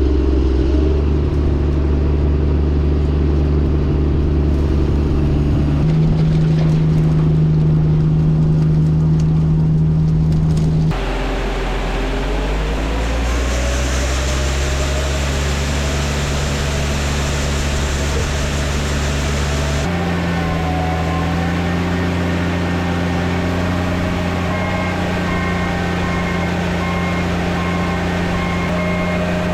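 Combine harvester running steadily while cutting soybeans, a loud mechanical drone that changes suddenly twice. After the first change it climbs gradually in pitch over a few seconds. A repeated high beeping joins in near the end.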